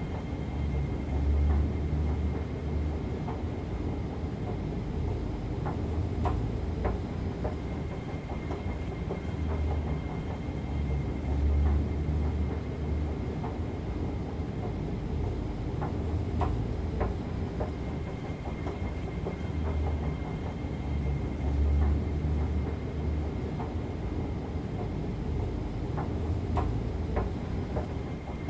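Central–Mid-Levels escalator running: a steady mechanical rumble with a low thud about every five seconds, a few light clicks, and a faint high whine that fades out and returns.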